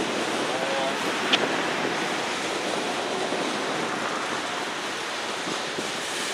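Boxcars of a Norfolk Southern manifest freight train rolling past, a steady rushing noise of wheels on rail, with one sharp click about a second and a half in.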